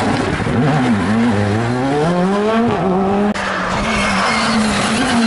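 Rally car engine revving up and down as the car slides through a hairpin, with tyres skidding. About three seconds in it cuts to another rally car's engine, holding a steadier note.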